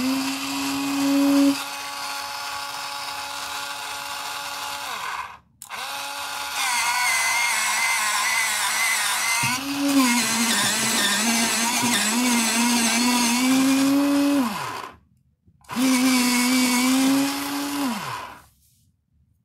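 X-ACTO Mighty Mite electric pencil sharpener motor running as a pencil is held in and sharpened, its hum dipping and wavering in pitch while the blade cuts. It runs in three stretches, cutting out briefly about five seconds in and again around fifteen seconds, and each time it stops the hum slides down in pitch as the motor winds down.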